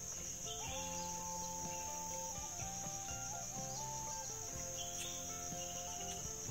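Steady, shrill chorus of forest insects. A faint held tone steps between a few pitches from about half a second in until near the end.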